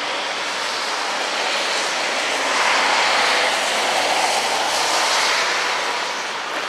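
A passing vehicle: a steady rushing noise that grows louder about two and a half seconds in and fades away toward the end, with a faint low hum beneath it.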